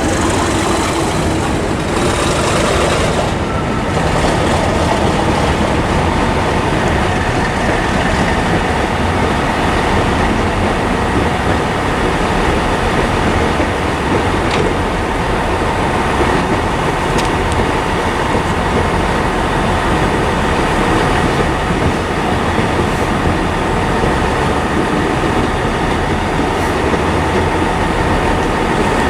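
Diesel train running steadily, a continuous engine drone mixed with wheel and rail noise, with a tone that glides down in the first couple of seconds.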